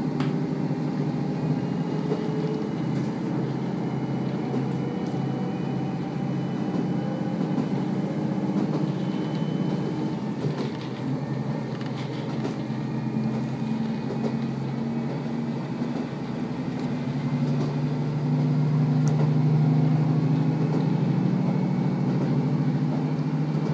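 Inside a KiHa 54 diesel railcar under way: a steady diesel engine drone mixed with wheel and rail running noise, louder for a few seconds near the end.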